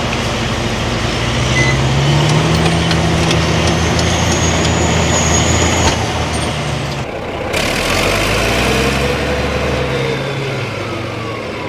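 Large bulldozer diesel engine working under load, its note rising about one and a half seconds in. About seven seconds in it switches abruptly to another dozer's engine, whose note rises and falls.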